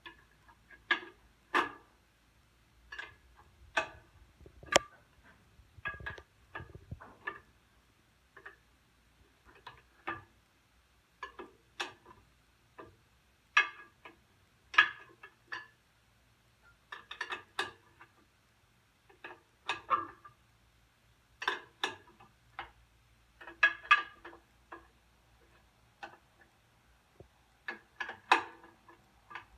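Irregular metallic clicks and clinks, in short clusters every second or two, of a wrench turning the clutch adjustment nuts on a John Deere 60 tractor's clutch a little at a time.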